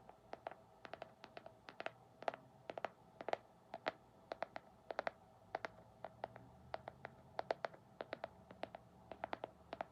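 ASMR tapping on a hard object: quick, light taps in irregular clusters of two to four, each with a short ring at the same pitch.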